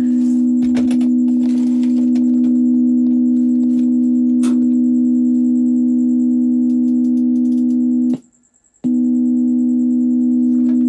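Two steady sine-wave test tones close together in pitch, from a two-frequency tone generator playing through the mixing board and a speaker. They cut out for under a second about eight seconds in, then resume.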